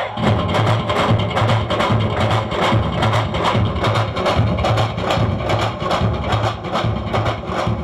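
Lively folk dance music with a fast, even percussion beat and hands clapping in time.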